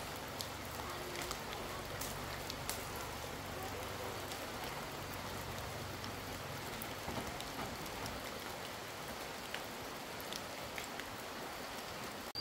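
Steady hiss of falling rain, with scattered light taps of drops.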